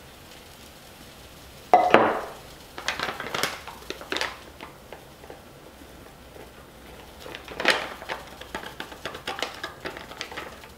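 Kitchen handling sounds: a sharp clatter about two seconds in, then a paper packet of dry beer batter mix crinkling as the powder is shaken into a plastic tub, with light knocks and rustles.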